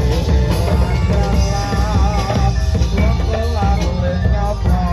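Loud live Javanese music over a PA: a singer holding wavering notes over drums and gamelan-style instruments.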